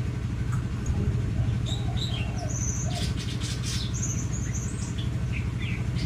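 Myna giving short chirps and a few flat high whistles, over a steady low hum.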